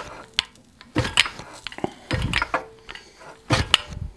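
A hand-operated fly press driving a chisel into a red-hot square iron bar: three sets of sharp metallic clanks about a second and a quarter apart, with lighter clicks between them as the bar is shifted on the steel bolster.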